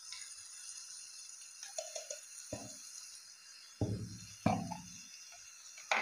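Vegetables and tomato paste sizzling faintly in a kadai on the gas stove, with a few knocks of a container lid and small containers being handled on the stone countertop, the loudest two about four seconds in.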